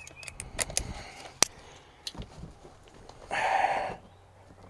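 Small clicks and rattles of parts and screws being handled while a truck cab's interior panels are fitted, with one sharp click about one and a half seconds in and a short burst of noise a little after three seconds.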